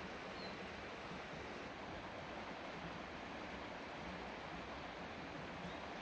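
Faint, steady rush of a rocky mountain stream.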